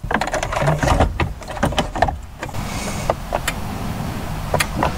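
Plastic clicks and knocks as a car stereo head unit is pushed and seated into the dash kit, a quick run of them in the first couple of seconds and a few more later, over a steady background noise.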